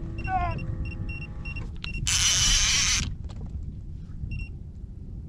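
A fishing reel's line clicker buzzing for about a second, two seconds in, as a catfish takes line, over a low steady rumble. Short high beeps come a few times before it and once after.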